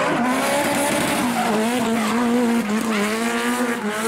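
Drift car sliding sideways through a corner with its tires squealing, the engine held high in the revs with a steady, slightly wavering note that dips briefly about three seconds in.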